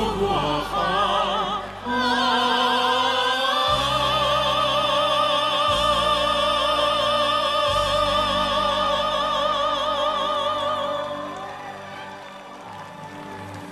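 A singer holds a long final note with wide vibrato over an orchestra, closing the song. The note fades out about eleven seconds in.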